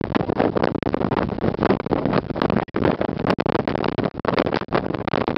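Strong wind of about 70 miles an hour buffeting the microphone, a loud, ragged blast of noise with rapid irregular gusts and brief dropouts.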